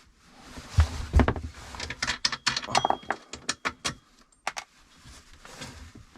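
Metallic clicks, knocks and clinks from tools and fittings being handled while the inverter's connections are undone, in a quick irregular run that thins out to a couple of single clicks near the end.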